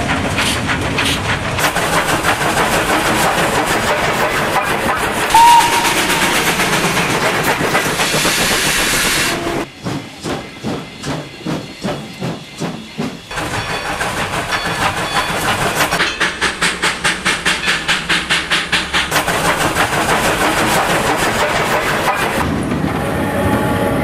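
Steam locomotive chuffing and hissing steam, with a brief whistle toot about five seconds in. The exhaust beats come in fast, dense runs, then spaced out and even around ten to thirteen seconds in and again around sixteen to nineteen seconds.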